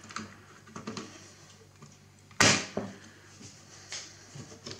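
Circuit boards and the metal chassis of an old bench voltmeter being handled: a few light clicks and taps, with one sharp click about two and a half seconds in.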